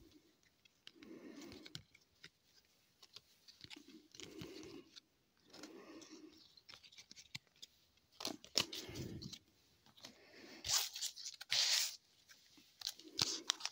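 Hockey trading cards being shuffled and slid through the hands, with soft scraping and light clicks. Near the end, the plastic wrapper of a sealed card pack crinkles and tears loudly as it is handled and opened.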